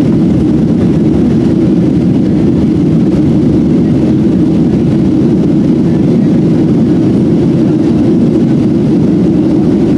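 Steady, deep cabin noise inside a Boeing 737-700: the twin CFM56 jet engines and rushing air, heard from a window seat, with no change in pitch or level.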